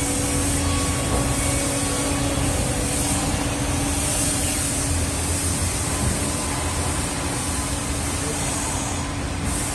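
CF SC4X4 CNC mortiser and tenoner running: a steady machine noise with a low rumble and a faint, even hum underneath.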